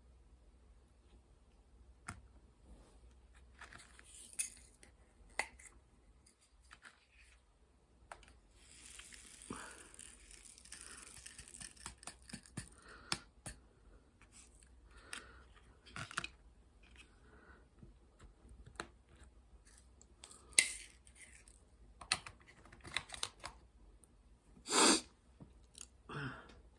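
Close-up handling sounds of hand needlework: scattered small clicks and taps, a few seconds of rustling about nine seconds in, and a louder short rub or knock near the end.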